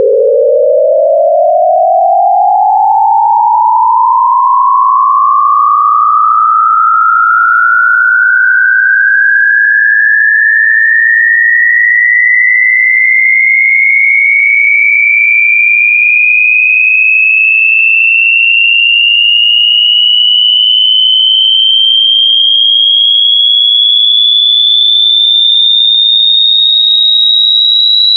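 A loud, single pure electronic sine tone sweeping upward in pitch, from a mid-low hum to a high whistle, rising quickly at first and then ever more slowly.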